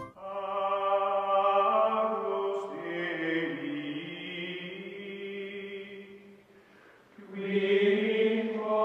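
Choral chant music: voices holding long notes that shift slowly in pitch, fading away about six seconds in and swelling back a second later.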